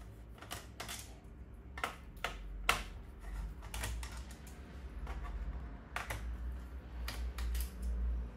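Irregular sharp clicks and taps of a screwdriver and small screws against a laptop's plastic bottom case as the case screws are taken out, over a low steady hum.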